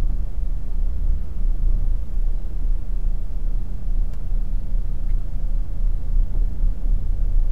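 Steady low engine and road rumble heard inside a truck's cab as it creeps along in slow traffic, with a constant low hum under it.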